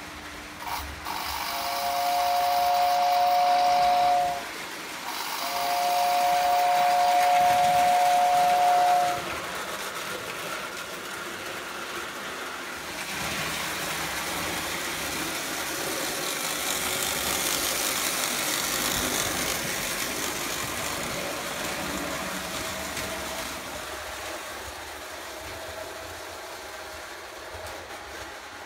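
Prewar Lionel O gauge toy train's whistle blowing twice, each blast a steady two-note chord, the second longer than the first. After that the train runs along the tinplate track with a steady rushing noise.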